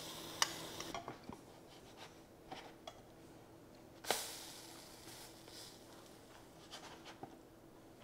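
Spatula clicking and knocking against a nonstick frying pan as a small pancake cooks, with a faint sizzle in the first second. One sharper knock with a short ring about four seconds in; the rest are light, scattered taps.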